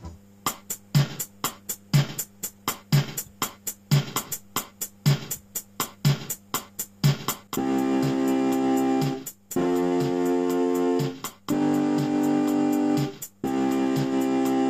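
Electronic home keyboard playing a steady built-in drum-machine beat; about halfway in, held chords come in over it, each lasting about a second and a half with short breaks between them.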